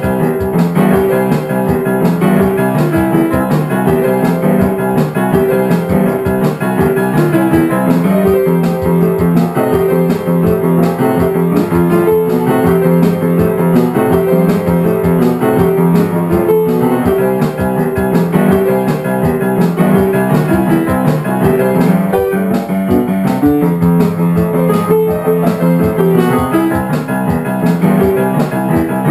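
Upright piano played in a boogie-woogie style: a continuous, dense run of rapid notes over a steady low bass line.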